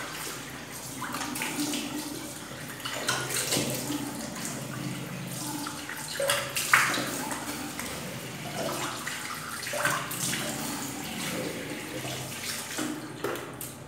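Water splashing irregularly as a face is rinsed with cold water.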